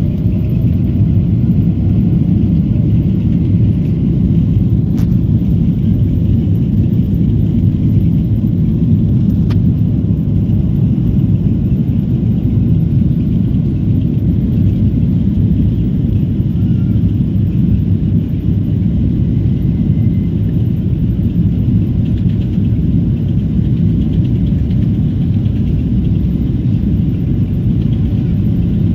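Steady low rumble of a Boeing 777, engines and air conditioning heard from inside the cabin, holding even with no rise in engine power, as on the ground before the take-off run.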